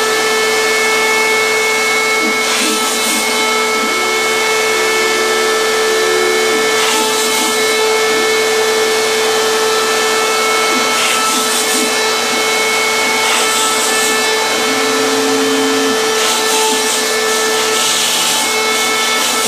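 PhlatPrinter MKII hobby CNC machine cutting foam sheet: the cutter spindle runs with a steady loud whine, while the stepper motors add shorter tones that start, stop and change pitch as the gantry moves along the cut paths, with brief hissy bursts every few seconds.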